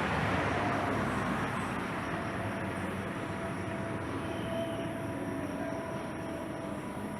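Jet engines of a departing Airbus A330 climbing away after takeoff: a steady, broad rumble that slowly fades.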